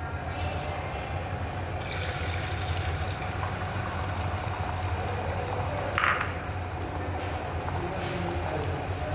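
Egg frying in hot oil in a pan: a steady sizzle over a low hum, with one brief sharper sound about six seconds in.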